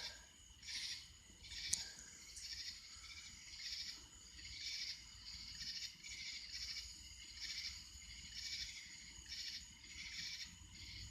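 Night insects chirping in rhythmic high-pitched pulses, roughly one burst a second, several calling at once. A single sharp click about two seconds in.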